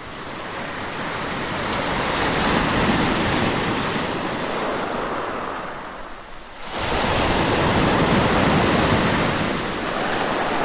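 Ocean waves washing in, two in turn: a wash that swells over the first couple of seconds and slowly eases off, then a second, more sudden surge about seven seconds in.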